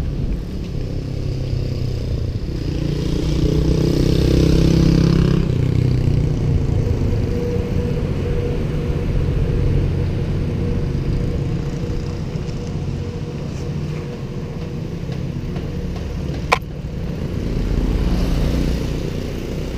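Steady low rumble of wind and road noise on a moving bicycle's action camera. It swells about three to five seconds in as a motor vehicle passes. There is one sharp click near the end.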